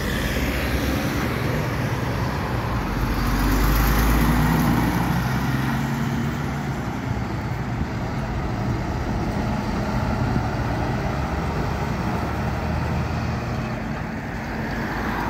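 Road traffic with heavy diesel trucks passing: a low engine hum and tyre noise, loudest about four seconds in.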